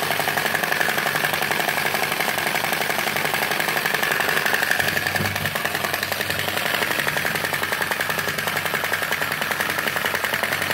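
Model flame-licker (vacuum) engine running at high speed: a fast, steady mechanical clatter from its piston, valve linkage and flywheel.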